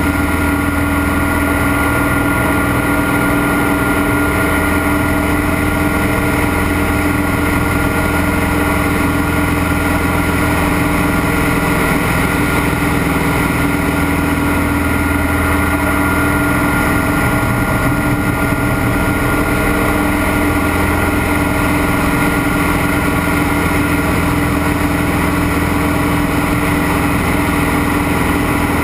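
Scottish Aviation Bulldog's four-cylinder Lycoming piston engine and propeller droning steadily in flight, heard inside the closed cockpit.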